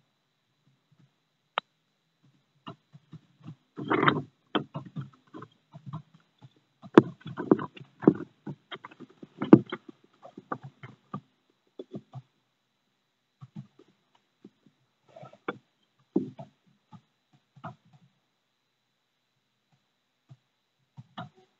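Russian tortoises (Testudo horsfieldii) in courtship, with an irregular clatter of knocks and scrapes from shell against shell and claws on stone. The knocks come in bunches with near-silent gaps, thickest about four seconds in and again from about seven to ten seconds.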